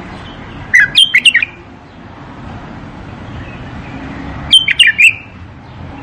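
Bulbul singing: two short, loud phrases of quick, rising and falling notes, one about a second in and another about four and a half seconds in. A faint steady hiss lies underneath.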